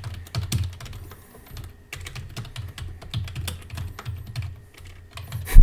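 Typing on a computer keyboard: quick, irregular keystrokes with short pauses, then one much louder thump near the end.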